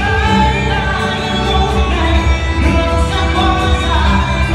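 A live band amplified through a hall PA system: several voices singing together over strummed guitars and a steady low beat.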